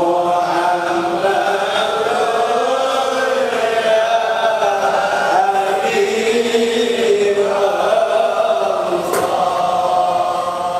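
A group of men chanting a Sufi zikir litany together, in long drawn-out notes that glide slowly up and down. A new phrase starts right at the beginning.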